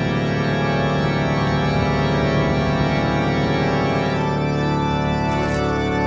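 Background music of long held chords, a thick steady drone with a new higher note joining about two-thirds of the way through.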